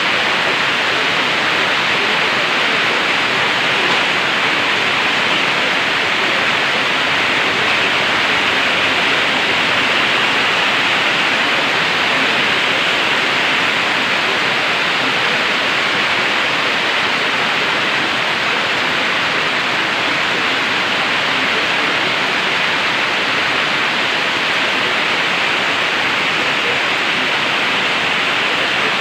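Tropical-storm rain falling steadily, an even, unbroken hiss.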